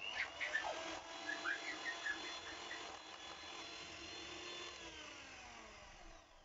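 Electric hand mixer running, its beaters whipping an egg yolk into beaten egg whites in a glass bowl: a steady motor whine with scattered clicks in the first few seconds. Near the end the whine falls in pitch and fades as the motor winds down.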